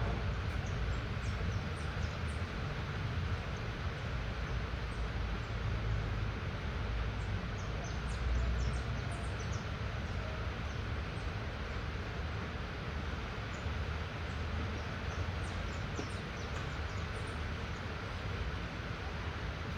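Light rain falling steadily, an even hiss, over a continuous low rumble, with scattered faint short high chirps.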